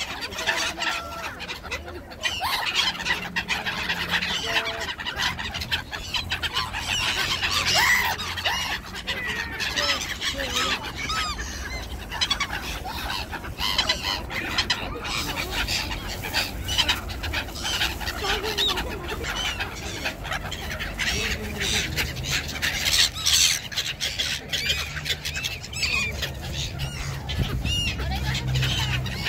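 A flock of black-headed gulls calling: many short calls overlapping without a break.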